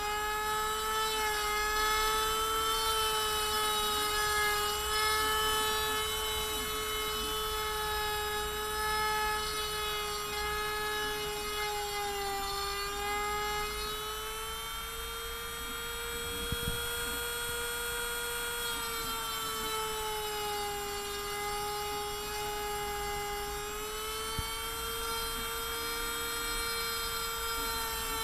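Handheld 135-watt rotary tool, the spindle of a mostly 3D-printed CNC router, running with a steady high whine while its 3 mm end mill cuts pine wood. The pitch sags slightly twice, about twelve and twenty seconds in.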